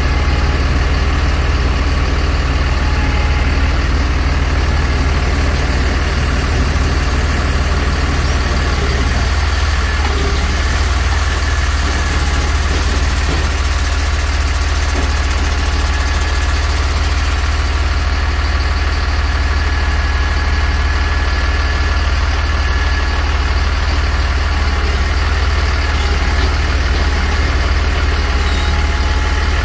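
Mercedes-Benz MBE900 6.4-litre diesel engine of a Sterling Acterra truck idling steadily while the Pac-Mac grapple loader's hydraulics are worked. The low engine note shifts slightly about nine seconds in.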